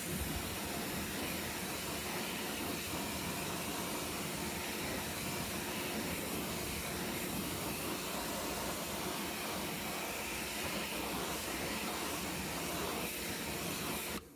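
Pressure washer jet spraying water onto a car's alloy wheel and tyre: a steady, loud hiss of spray that cuts off suddenly at the very end.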